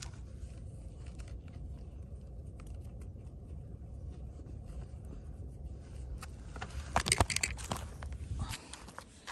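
Wind rumbling on the microphone of a phone set down on the ground, with scattered small clicks and a burst of handling knocks and scrapes about seven seconds in.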